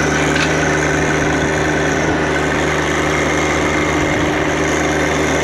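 John Deere compact tractor engine running at a steady speed while its front-loader grapple lifts a large ash stump.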